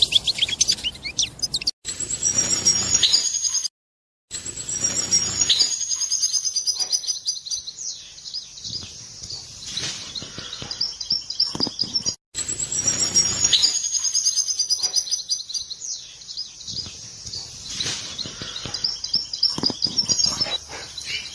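European goldfinch twittering: rapid, high chattering calls in long runs, broken by a few short silent gaps.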